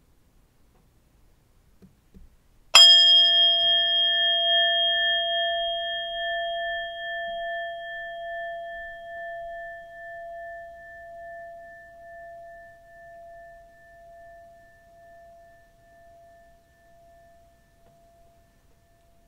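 Singing bowl struck once, about three seconds in, marking the break between rounds of reading. It rings with a clear tone and fainter high overtones, wavering as it slowly fades over some fifteen seconds.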